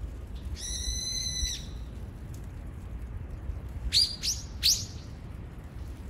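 Brown-eared bulbul calling loudly: one drawn-out, buzzy note about a second long, then three short, sharp, high calls in quick succession a little past the middle, over a low rumble.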